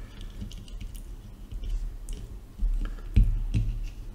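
Fingers pressing a small pouch battery down into a plastic intercom case: soft rubbing and handling noises with scattered light clicks, and a few louder low knocks about three seconds in.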